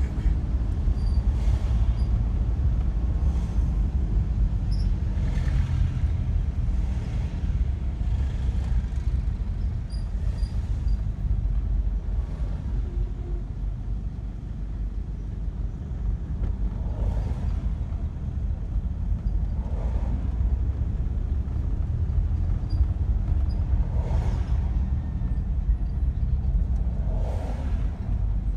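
Low, steady rumble of a car moving slowly in traffic, heard from inside the cabin: engine and road noise.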